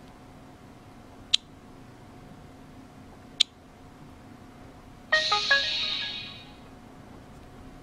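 LG Optimus 2X smartphone playing its startup jingle through its speaker as it boots: a quick run of bright notes that fades out over about a second and a half. Before it come two sharp clicks.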